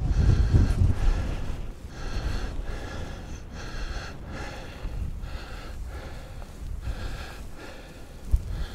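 A hiker breathing hard while walking uphill, a run of quick, even breaths about one to two a second. Wind rumbles on the microphone in the first second.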